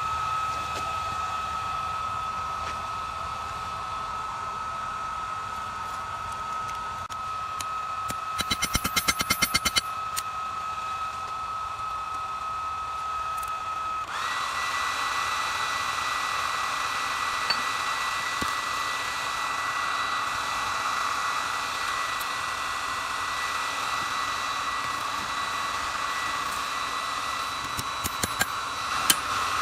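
Electric blower feeding air to a forge, running with a steady whine; about halfway through its pitch drops slightly and it grows louder and rougher. A quick run of about a dozen clicks comes a third of the way in, and a few sharp ticks come near the end.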